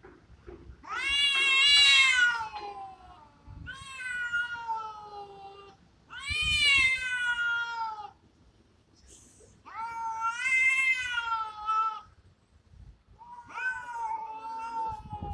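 Two cats yowling at each other in a territorial standoff: five long, wavering calls of about two seconds each, the loudest about a second in.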